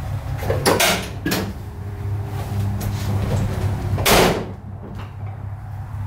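The 1988 Ford Ranger's 2.9 V6 idling steadily, just fired up on a newly replaced starter. A few clicks and knocks come about a second in, and a truck door shuts with a sharp thud about four seconds in.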